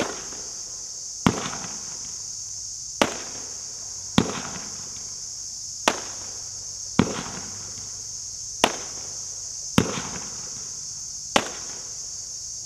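Brothers Fireworks BP2228 ("Captain Sam") 30-shot daytime parachute cake firing shot after shot: about nine sharp bangs, spaced roughly every one to one and a half seconds, each with a brief fading tail.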